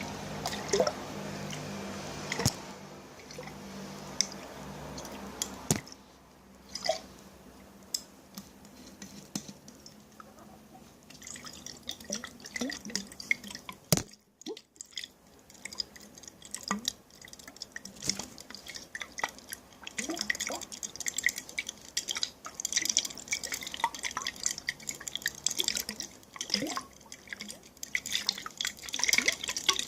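Close-miked water dripping and splashing in a container. Separate drops come first, then a sharp knock about halfway through, and after that a quicker, denser run of small splashes and trickling.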